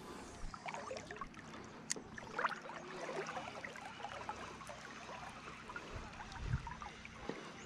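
Water lapping and trickling against a small boat's hull, with scattered light clicks and a low knock about six and a half seconds in.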